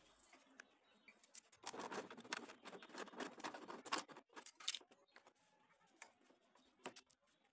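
Hard plastic mudguard panel being pushed and worked into place against a scooter's plastic body: a faint run of plastic scraping, rubbing and clicking, busiest from about two to five seconds in, with a few stray clicks near the end.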